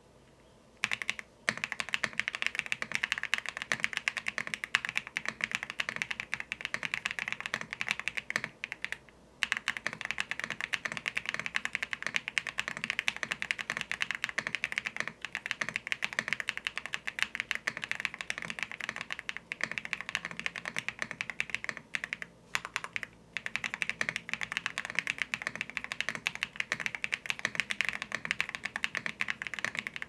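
Fast, continuous typing on a Tiger80 Lite mechanical keyboard fitted with hand-lubed Akko Cream Yellow V3 Pro linear switches. A dense run of keystrokes starts about a second in, with a couple of short pauses.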